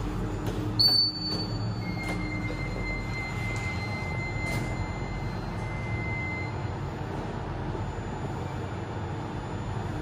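Hitachi machine-room-less passenger lift running: the steady hum and rumble of the car in motion. About a second in there is a brief loud knock, and two thin high-pitched whines start, one with the knock and one a second later, both fading out around six or seven seconds in.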